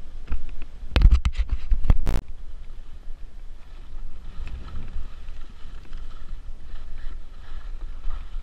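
Skis carving turns through wet spring slush, a rough scraping hiss, with wind rumbling on the camera microphone. A quick cluster of sharp clatters and knocks comes about one to two seconds in.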